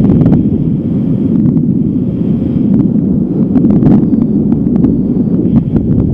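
Strong wind buffeting the microphone: a loud, steady low rush with scattered small clicks.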